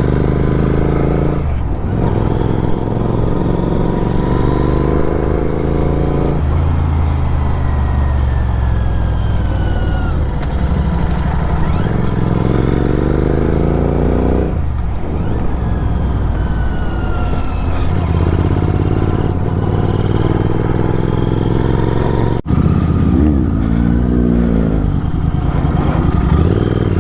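Kawasaki Z900 inline-four with an SC Project aftermarket exhaust, accelerating on the road: the engine note climbs through a gear, drops at a shift about six seconds in, and climbs again through further gears, with a quick rev rising and falling near the end.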